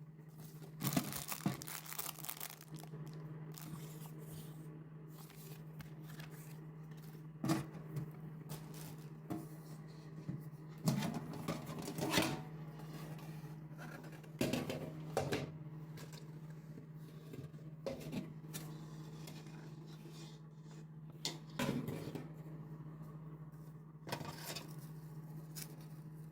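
Packaging of a pet water fountain being unpacked: irregular tearing, crinkling and scraping of cardboard and plastic in separate handling bursts, over a steady low hum.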